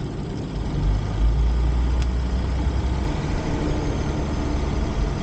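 Winnebago Ekko camper van, built on a Ford Transit chassis, driving along: a steady low engine and road rumble.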